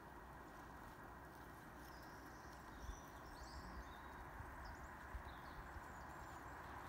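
Faint outdoor ambience: a steady low background noise with a few short, high bird chirps scattered through the middle.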